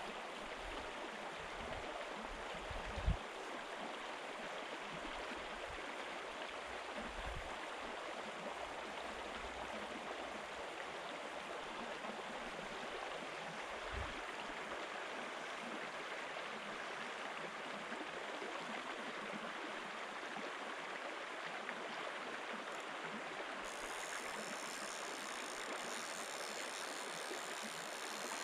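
Shallow river flowing over a stony riffle: a steady, even rush of water. A brief low bump about three seconds in.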